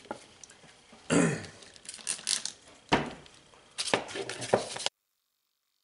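Hand rubbing and scraping on a hard plastic HDPE helmet shell: wiping with a towel and rubbing with a small piece of sandpaper, in several short separate strokes. The sound cuts off abruptly near the end.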